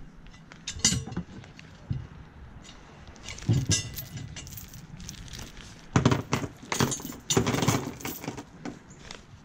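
Metal clinking and rattling mixed with handling rustle, in several separate bouts: anchor gear being handled, a fluke anchor with galvanized link chain and a stainless spring link.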